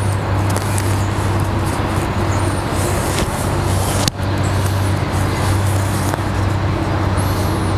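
Steady low rumble with a constant hum underneath and a hiss above, dropping out for an instant about four seconds in, with a few faint bird chirps.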